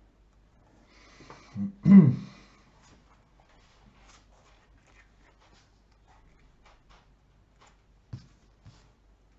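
Cards being handled on a table: a short rustle about a second in, then a loud thump about two seconds in, followed by faint scattered clicks and taps as cards are moved and placed.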